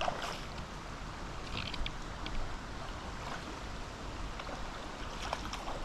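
Shallow stony river flowing with a steady rush, while a hooked trout thrashes and splashes at the surface right at the start, followed by a few faint ticks.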